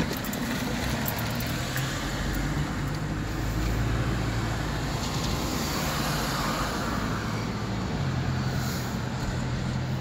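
Toyota car heard from inside the cabin while driving: steady engine and road noise. A low engine hum stands out more clearly near the end.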